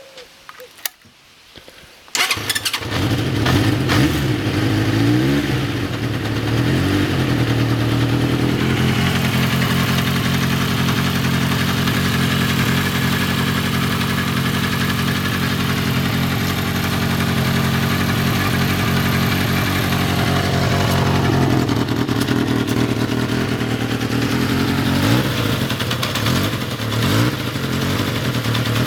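Warm engine starting about two seconds in, then idling steadily with a few slight rises and falls in speed; the owner reports a rattle from it when warm.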